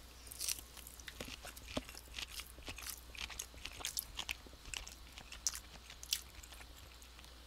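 Chewing a mouthful of ready-to-eat chicken breast strip, with soft, irregular mouth clicks and smacks.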